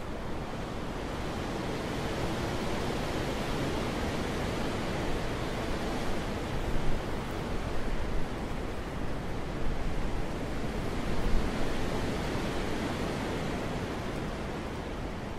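Wind blowing steadily, swelling into a stronger gust through the middle and easing off again, with a few brief louder low puffs near the gust's peak.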